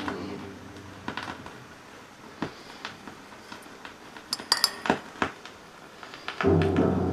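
Music fades out, followed by a quiet gap with a few scattered light clicks and clinks of small objects being handled. Music starts again near the end.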